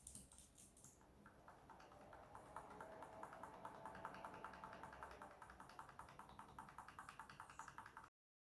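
A computer keyboard key, F11, tapped rapidly over and over, about five or six light clicks a second, to call up the motherboard's boot menu at power-on. The tapping cuts off abruptly near the end.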